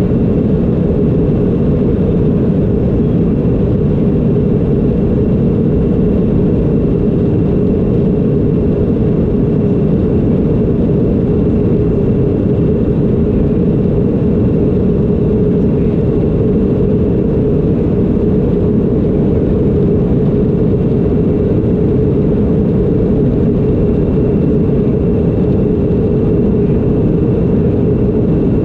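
Cabin noise of a Boeing 737-200 in flight: the steady drone of its Pratt & Whitney JT8D turbofan engines and rushing air, heard inside the cabin. A steady low hum sits in the noise, with a faint high whine above it.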